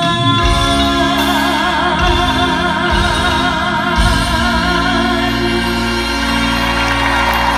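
A female singer holds a long note with wide vibrato over a full band and orchestral backing, with the band playing on after she lets the note go about five seconds in. It sounds like the song's closing bars.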